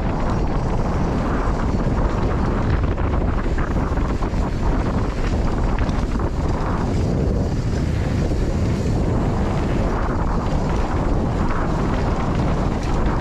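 Wind buffeting a GoPro's microphone during a fast downhill mountain bike descent, mixed with the tyres rumbling and chattering over the dirt trail and the bike rattling.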